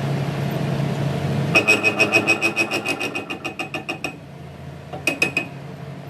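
A steady machine hum, then a fast run of sharp metallic impacts with a bright ring, about six a second and fading away, followed by three more strikes: steel being struck in an axle-repair workshop.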